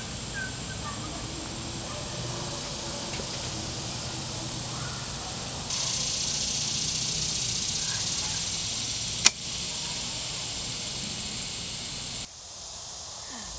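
A single sharp snap of a bowstring as an arrow is shot from a hand-drawn bow, about nine seconds in, over steady woodland ambience with a high hiss.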